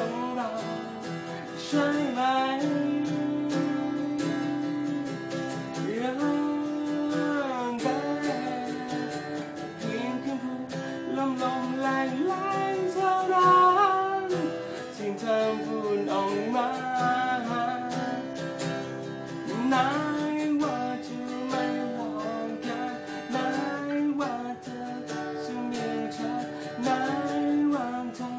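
A man singing while strumming an acoustic guitar, with long held notes over steady strums.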